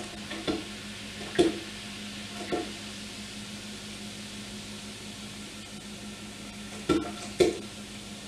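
Lemon-lime soda poured from a plastic 2-liter bottle into a glass punch bowl over frozen fruit: a steady fizzing splash, with a few louder glugs from the bottle, three in the first few seconds and two near the end.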